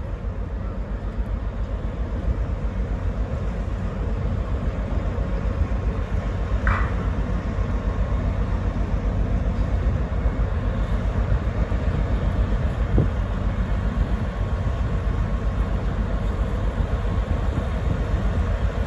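Ferry's engines and propellers rumbling as it pulls away from the pier: a steady, pulsing low rumble that grows slightly louder. A brief higher tone sounds about seven seconds in.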